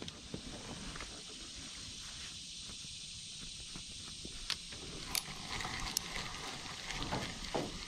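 Scattered light clicks and taps from hands working a spinning reel and rod over quiet outdoor ambience.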